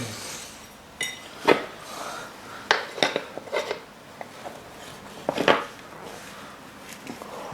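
Metal tyre levers clinking and knocking against a motocross wheel rim as a tyre is worked onto it by hand: a string of separate sharp clanks, the loudest about a second and a half in, near three seconds and about five and a half seconds in.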